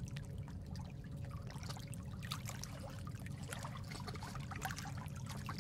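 Faint, steady running water, with a low rumble and scattered small splashes and drips.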